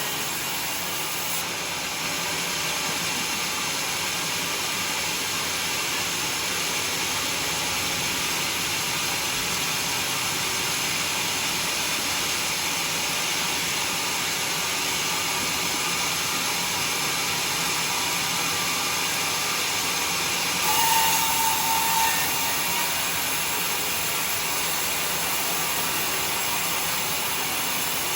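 Sawmill saw running steadily as it cuts a log of red Bayur timber. About three quarters of the way through it briefly gets louder, with a short high-pitched squeal.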